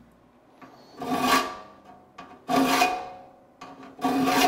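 Three strokes of a saw file across the teeth of a steel crosscut hand saw held in a vise, about a second and a half apart, each with a ringing tone from the steel. It is the rasp of sharpening, filing every other tooth to set the alternating bevels.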